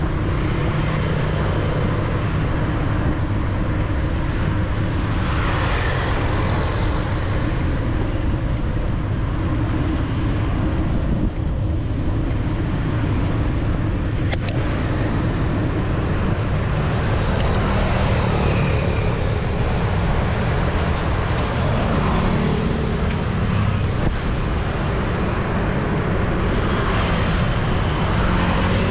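Busy city street traffic, mostly motorbikes with some cars: a steady mix of engine hum and road noise. A single sharp click comes about fourteen seconds in.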